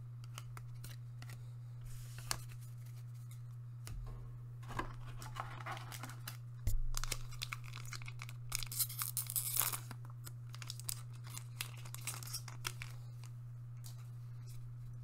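A foil trading-card booster pack torn open by hand: a crinkly tearing that builds about two-thirds of the way through, after a soft thump and light card handling. A steady low hum runs underneath.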